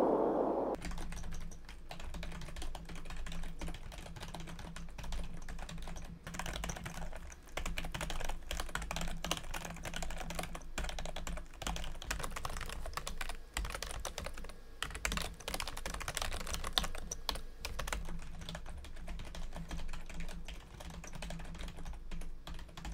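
Continuous typing on a computer keyboard, a dense, uneven stream of key clicks and clatter, picked up by a JLab Talk USB microphone in stereo mode beside the keyboard. A brief hiss fades out in the first second before the typing starts.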